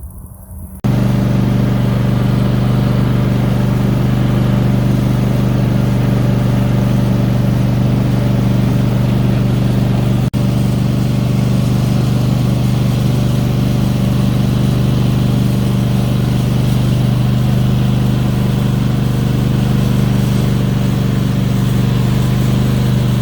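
An engine running steadily at an even speed, a loud low drone that comes in sharply just under a second in and breaks off for an instant about ten seconds in.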